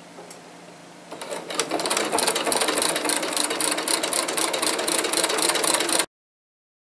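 Computerised domestic sewing machine with a walking foot fitted, sewing a stretch stitch through knit fabric and binding: it starts about a second in and runs as a fast, even ticking of stitches, about five a second, then cuts off suddenly near the end.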